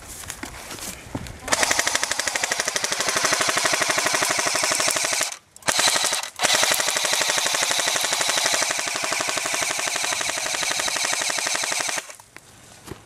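Airsoft electric rifle firing on full auto, a rapid clatter of shots. A long burst, a brief stop, a short burst, then another long burst that ends near the end.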